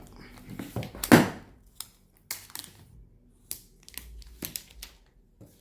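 Plastic wrapping on a phone box being peeled off by its pull tab: crinkling and tearing, with the loudest rip about a second in and scattered short crackles after it.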